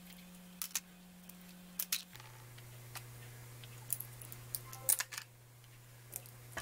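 Faint, irregular clicks of boiled blood cockle shells being pried apart by hand.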